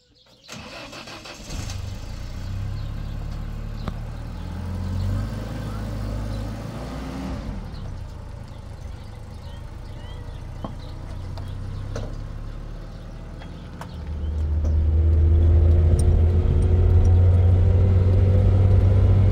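A motor vehicle's engine running steadily, growing clearly louder about three-quarters of the way through.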